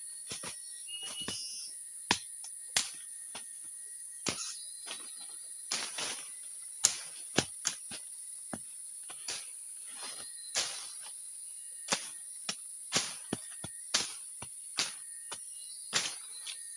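Steady high-pitched chorus of crickets and other insects, broken by irregular sharp knocks and clicks about once a second.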